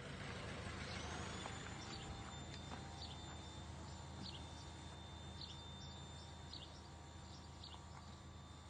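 Birds chirping in short calls about once a second over a low steady hum, with a thin high-pitched whine held from about a second in.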